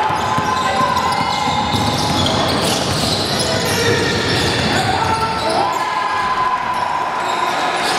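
Basketball bouncing on a gym floor during a youth game, with voices of players and spectators around it. A steady tone runs through and steps up in pitch about five and a half seconds in.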